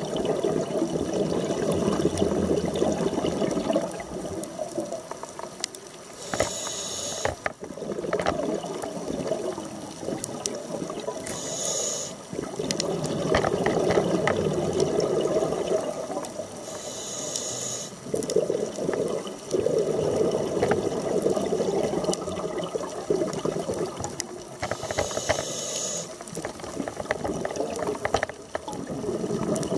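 Scuba diver breathing through a regulator: a short hiss with each inhale, four times, each followed by several seconds of burbling exhaled bubbles.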